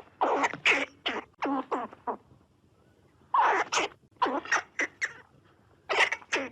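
Squirrel calling: short, harsh barks in three quick runs of several calls each, with a pause of about a second between runs.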